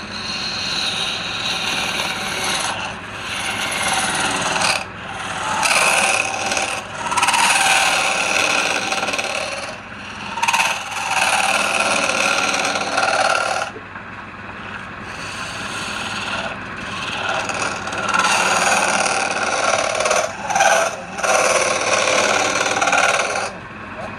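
Wood spinning on a woodturning lathe with a tool scraping against it in several passes of a few seconds each, with short breaks between them. The lathe hums steadily underneath.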